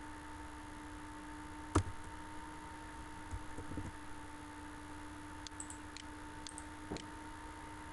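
Computer mouse clicking and ticking as the software is worked: one sharp click about two seconds in, softer knocks a couple of seconds later, and a few faint ticks near the end, over a steady low electrical hum.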